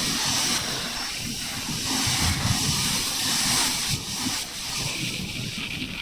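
Strong wind buffeting the microphone: irregular low rumbling puffs under a loud rushing hiss that eases about four seconds in.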